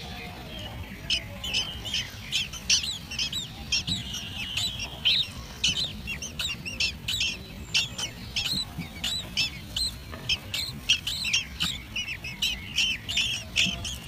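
Songbird nestlings calling from the nest: a rapid run of short, high chirps, several a second, typical of chicks begging for food.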